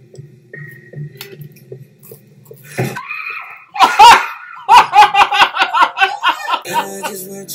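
A woman laughing loudly, starting about three seconds in with a rising shriek and going on as a quick run of high ha-ha pulses that trail off near the end.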